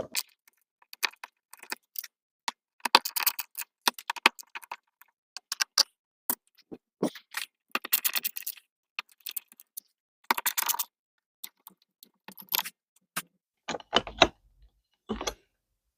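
Phillips screwdriver backing screws out of a trailer door's deadbolt lock: irregular clusters of small metallic clicks, clinks and rattles, with two duller knocks near the end.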